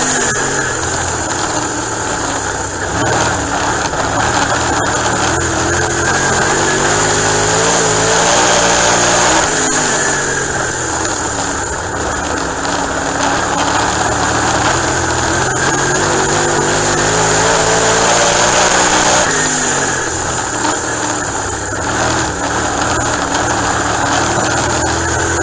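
Dirt-track race car engine at racing speed, heard from the cockpit. The engine note dips about every nine seconds as the car backs off for the turns, then climbs again down the straights.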